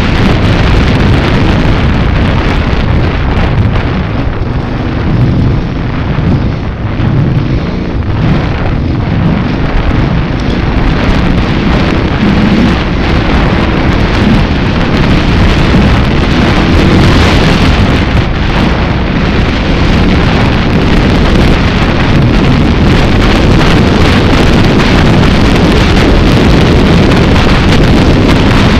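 Loud, continuous wind buffeting on the microphone over the running engine of a vehicle driven along a sandy desert dirt track, with many small knocks and crackles throughout. It eases a little about five to nine seconds in.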